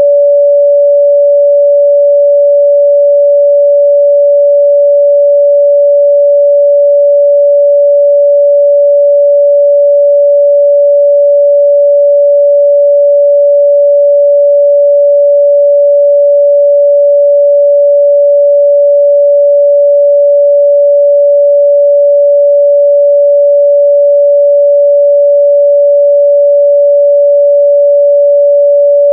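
A pure 574 Hz sine-wave test tone, held loud and steady at one pitch with no other sound.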